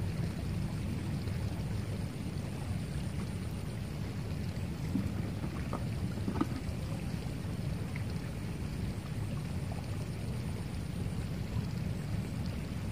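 Steady low outdoor rumble, with a few faint short clicks about halfway through.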